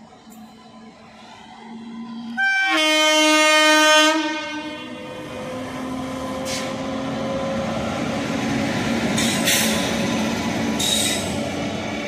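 A WAG9HC electric locomotive sounds its horn, a loud multi-tone blast of about a second and a half starting a couple of seconds in. Then the train runs through at low speed: a building rumble of wheels on rail with a faint rising hum and a few short sharp wheel squeals.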